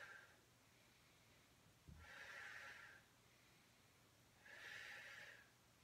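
A woman's slow, soft breaths while exercising: two breaths a couple of seconds apart, with the tail of another at the start, and a soft low bump about two seconds in.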